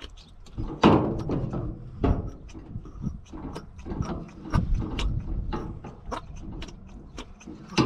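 Irregular clicks and clacks of a tractor's hand fuel primer being pushed over and over to bleed air from the fuel system after a filter change.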